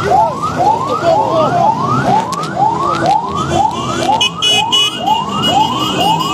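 Vehicle siren on a fast yelp, a rising sweep repeating about two and a half times a second. A second, higher tone joins about four seconds in.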